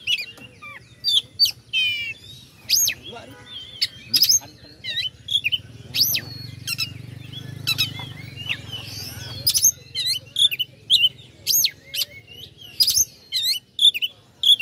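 Oriental magpie-robin (kacer) singing: a rapid, unbroken string of loud, sharp whistled notes and chirps that sweep up and down, with a quick trill about two seconds in, over a faint low steady hum.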